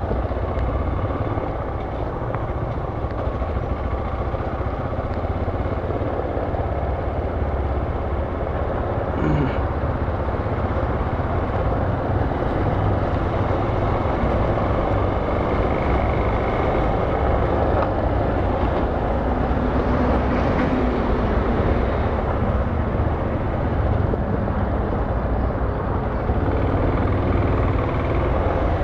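Motorcycle engine running while being ridden, heard from the rider's helmet camera, with the engine note rising briefly near the end.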